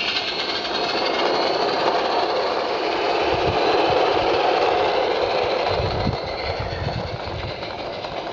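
Live-steam garden-railway locomotive running with its train of wagons rolling along the track. It grows loudest about four seconds in as it passes closest, then fades as it moves away.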